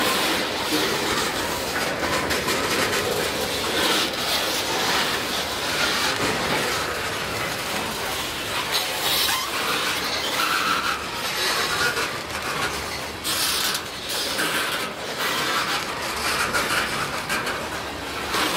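Freight train tank cars rolling past: a steady clatter of steel wheels on the rails, broken by irregular clicks as the wheels cross rail joints.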